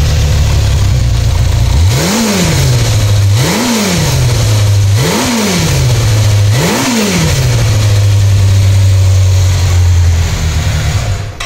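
Kawasaki Zephyr 400's air-cooled four-cylinder engine idling through its original Kawasaki muffler, blipped four times about a second and a half apart, each rev rising and falling quickly. The engine stops near the end. It is running without problems.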